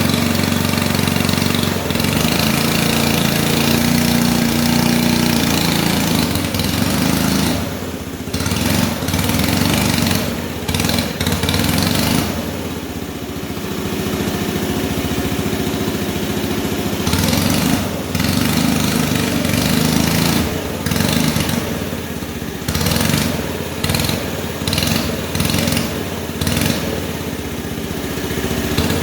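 Small combustion engine of a hand-built radio-controlled Cat D11 bulldozer model running, its speed rising and falling again and again. It drops lower for a few seconds about twelve seconds in, then revs in short repeated bursts toward the end.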